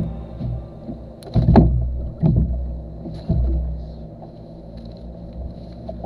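Low rumbling noise with a few dull knocks and thumps, the loudest about a second and a half in.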